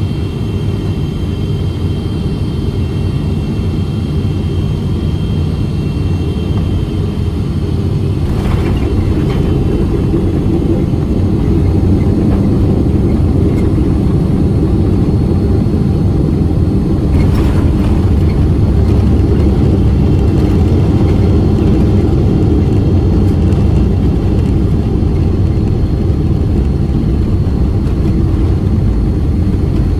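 Boeing 777-300ER landing, heard from the cabin: a steady low rumble with a thin high engine whine that fades out about eight seconds in, a short jolt near then as the jet touches down, and the rumble growing louder as the airliner rolls out on the runway.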